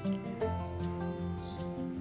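Soft instrumental background music with long held notes, with a few bird chirps mixed in.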